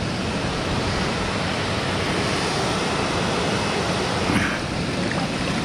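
Steady rushing noise of flowing river water.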